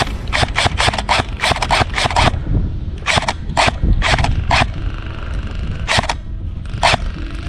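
Airsoft guns firing strings of sharp, quick cracks, several shots a second, with short pauses between the strings and two single shots near the end, over a steady low rumble.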